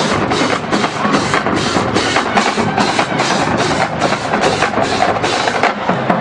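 Marching band drumline playing a cadence: snare drums, tenor drums, bass drums and cymbals. Sharp accented hits fall on a steady beat about two and a half times a second and stop shortly before the end.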